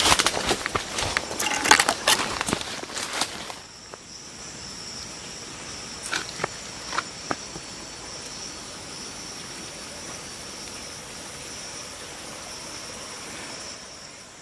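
Crunching and rustling of dry leaves and brush underfoot for the first few seconds. After that comes a steady, high insect chorus in the forest, with a few light snaps of twigs or leaves.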